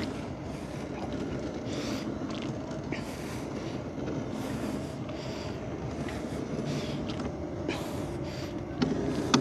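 A small fishing boat's engine running steadily, with short hissy splashes now and then and a knock near the end.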